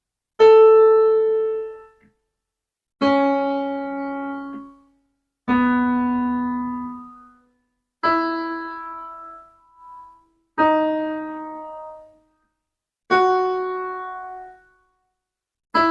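Piano notes played one at a time, about every two and a half seconds, each struck and left to fade. It is a slow sol-fa melody line played as a pitch guide for singing along.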